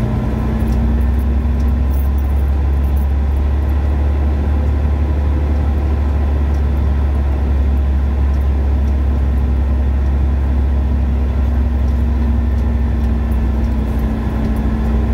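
Freightliner Coronado semi truck's diesel engine running at low speed, a steady low drone heard from inside the cab as the truck creeps forward and turns across the lot.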